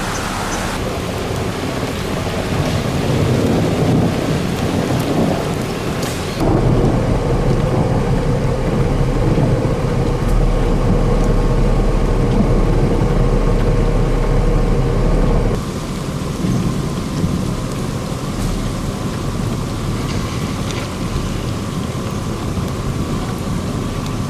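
Rain falling steadily, with a strong low rumble of wind on the microphone through the middle stretch. The sound changes abruptly a few times between clips.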